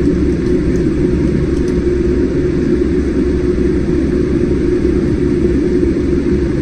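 Steady jet airliner cabin noise heard from inside the cabin on the ground: engines at idle and cabin air giving a constant low rumble and hum.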